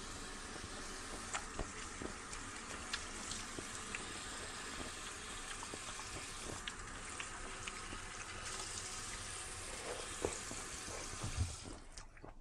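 Kitchen tap running in a steady stream onto grapes in a plastic strainer in a stainless steel sink, with a few light clicks. The flow drops away near the end.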